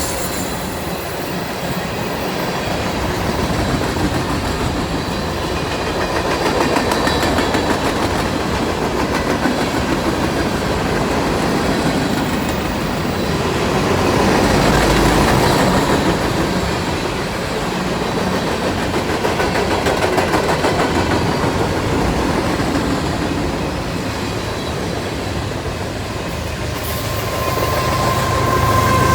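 Freight cars of a manifest train rolling past, a steady rumble and clatter of steel wheels on the rails that swells and eases. A high steady squeal comes in near the end.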